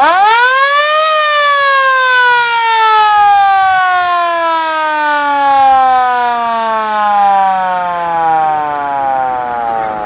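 The siren of a 1970 Cadillac Miller-Meteor ambulance winds up to a high wail in about a second. It then falls slowly and steadily in pitch as it winds down, still sounding at the end.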